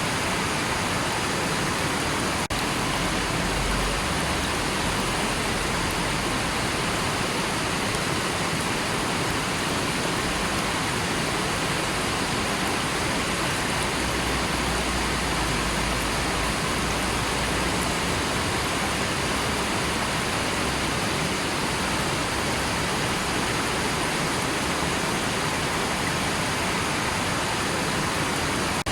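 River water rushing steadily, an even full hiss of flowing water with a deep rumble that swells and fades a few times underneath.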